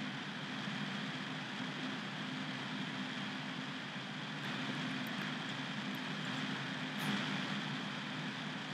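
Steady background noise: an even hiss with a low hum underneath, and a few faint high clicks in the middle.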